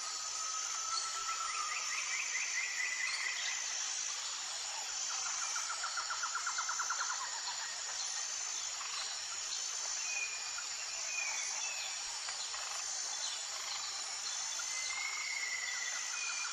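Outdoor nature sound: a steady high insect buzz that pulses about once a second, with several rapid bird trills and short whistled calls over it.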